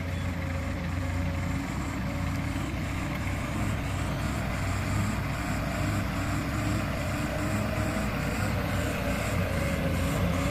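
Heavy diesel truck engine running steadily, with a whine that rises slightly near the end.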